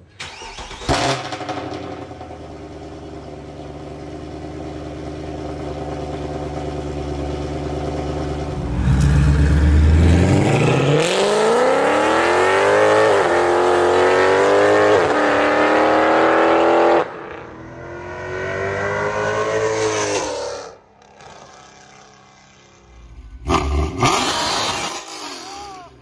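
W204 Mercedes C63 AMG's 6.2-litre V8 with long-tube headers, an X-pipe in place of the secondary cats and a resonator delete. It idles steadily, then from about nine seconds makes a hard pull with the pitch climbing and dipping briefly twice at upshifts. Shorter bursts of revving follow near the end.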